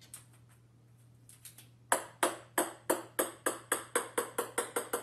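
A small light ball bouncing on a hard wooden floor. The sharp taps start about two seconds in and come faster and faster as the bounces shorten, over a faint steady low hum.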